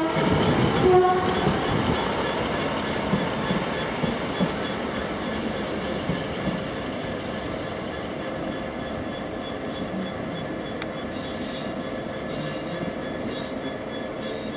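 Class 150 Sprinter diesel multiple unit: the last of a two-tone horn blast about a second in, then the train's diesel engines and wheels running steadily as it pulls away, with a thin squeal from the wheels.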